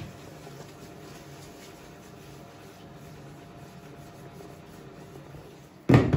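Faint rubbing of a cloth on ceramic floor tiles under a low steady hum, then a sudden loud thump near the end.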